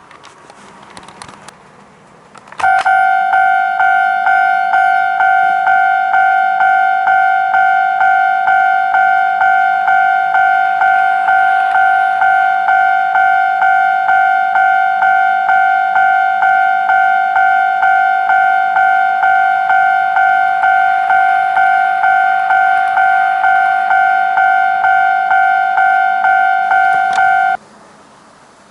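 Toy level-crossing warning alarm on a model railway ringing its repeated electronic crossing bell, a little over two strikes a second. It starts a few seconds in and cuts off suddenly near the end, the sound of the crossing signal being active for a train.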